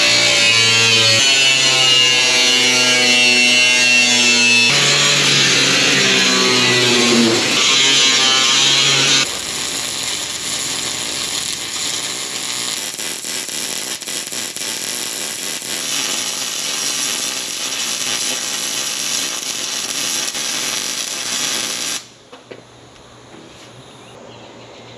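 Music for about the first nine seconds, then an electric arc welder crackling steadily while welding steel, cutting off suddenly a few seconds before the end.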